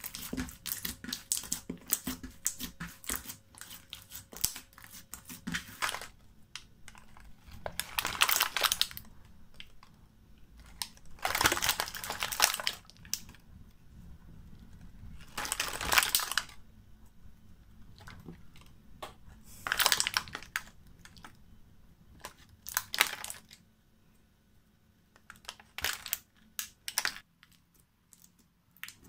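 Slime being handled by hand: clear glitter slime kneaded with a dense crackle of quick clicks, then a series of separate squishing presses, each about a second long, roughly every four seconds.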